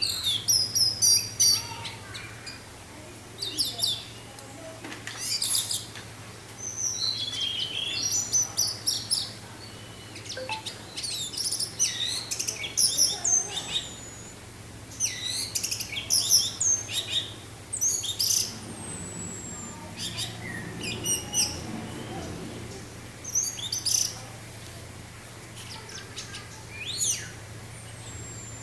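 Orange-headed thrush singing in rapid bursts of short, varied, high chirping and whistled phrases, separated by brief pauses, over a steady low hum.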